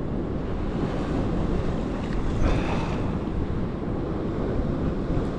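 Black Sea surf washing onto the shore in a heavy swell, with strong wind buffeting the microphone; a louder rush of water comes about halfway through.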